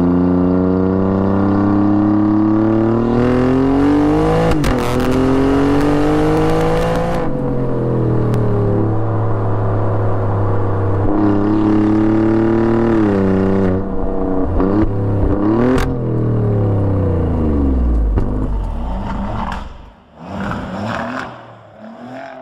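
Alfa Romeo Giulia Quadrifoglio's twin-turbo V6 exhaust heard from outside the car while driving, its pitch rising under acceleration, falling as the car eases off, then rising and falling again, with sharp cracks about four and a half seconds in and near sixteen seconds. The sound drops away in the last few seconds.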